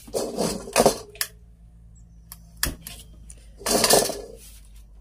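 Metal spatula clattering and scraping against an empty metal wok as the wok is handled on its burner stand: a burst of metal clatter about a second in and another just before four seconds, with a single sharp knock between them.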